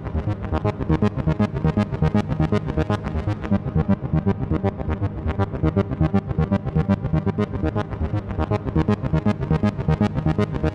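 Instrumental closing-credits music: a steady, rapid run of repeated synthesizer and piano-like keyboard notes.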